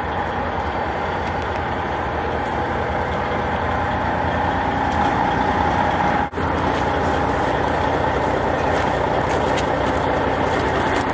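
Steady engine drone heard from inside a vehicle cabin, with a low hum underneath, briefly cut off about six seconds in.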